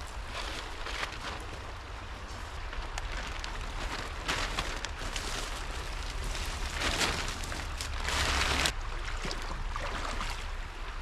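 Rustling and crackling of brush and debris being pushed through and handled, with louder bursts about four seconds in and again from about seven to nine seconds in, over a steady low rumble.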